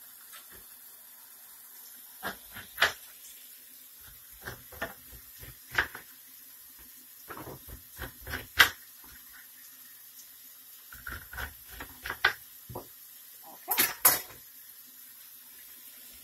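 Chef's knife cutting kernels off an ear of fresh corn on a plastic cutting board: irregular knocks and short scraping strokes of the blade against the board, a few of them sharp and loud.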